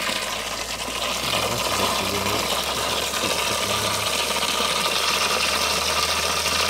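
Water gushing from a brass Portsmouth-type float valve into a cast iron toilet cistern and splashing on the water surface, a steady rush over a low steady hum: the cistern refilling after a flush.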